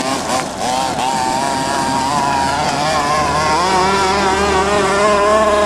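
Small two-stroke petrol engine of a 1:6 scale FG monster truck running, its pitch rising and falling as the throttle is worked.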